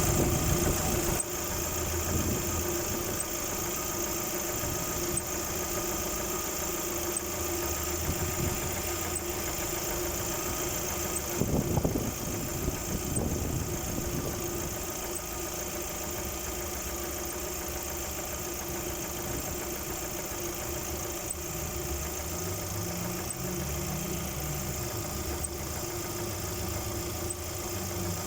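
Lada Vesta engine idling, heard close to the alternator, with a faint high squeak repeating at a steady pace. The squeak comes from the alternator side of a nearly new car, and its cause is unknown.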